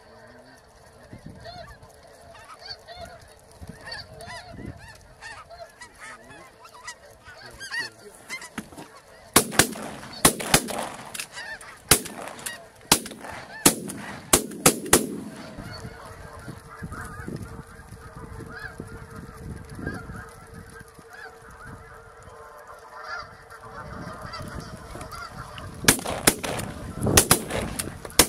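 A large flock of snow geese calling steadily overhead. About a third of the way in, a string of around eight to nine loud shotgun shots from several hunters rings out over a few seconds; the geese keep calling, and another burst of shotgun fire comes near the end.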